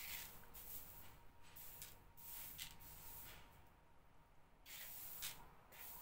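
Faint rustling of boiled, dried bulgur wheat as fingers rake and pick through it in a round wooden-rimmed tray, sorting out seeds and stones. It comes in several soft, short patches of hiss.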